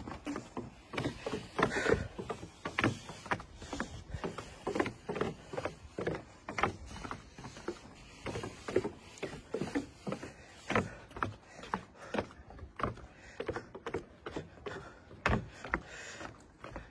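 Footsteps on timber stairs and a wooden boardwalk: a steady walking rhythm of hollow knocks, about two steps a second.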